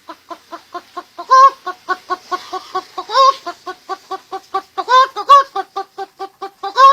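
A man imitating a hen with his mouth: a quick run of short clucks, about five a second, broken by several louder, drawn-out cackles.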